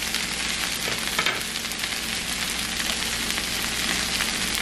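Frying pan of spinach, red onion and breaded veggie chicken patties sizzling steadily, with small crackles, as the spinach cooks down.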